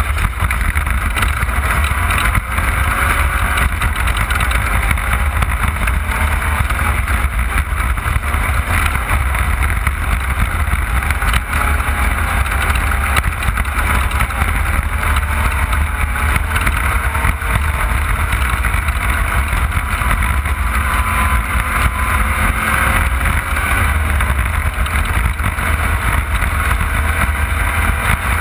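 Off-road race car's engine running under load: a loud, steady drone with a deep rumble, its pitch wavering slightly up and down with the throttle.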